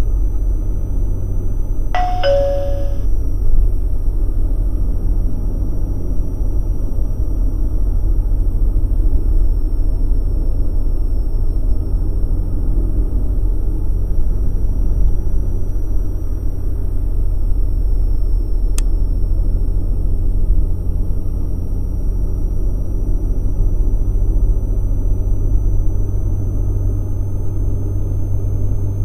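Steady low road and engine rumble inside a car cabin at freeway speed. About two seconds in, a short electronic two-note chime sounds, stepping down in pitch like a ding-dong.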